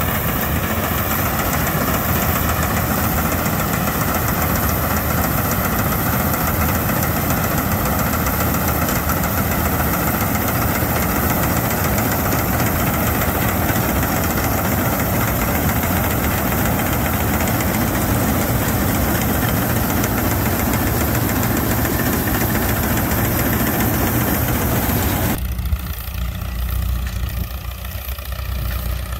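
Vintage Allis-Chalmers combine running while it harvests wheat: engine and threshing machinery make a steady, dense mechanical noise. About three-quarters of the way through, it cuts suddenly to the quieter, lower engine rumble of an Allis-Chalmers tractor pulling a hay rake.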